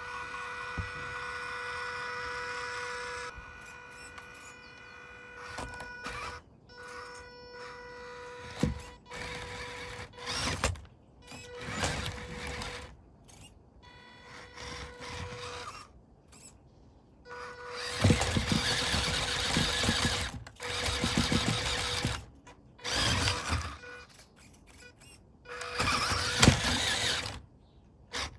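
The small electric motors and gearboxes of toy RC cars whining as they drive and climb. The whine holds steady for the first few seconds, then comes in stop-start runs that cut off suddenly, and grows louder and noisier about two-thirds of the way in.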